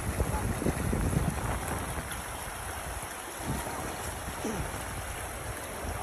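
Mountain river rushing steadily, with wind buffeting the microphone, strongest in the first couple of seconds.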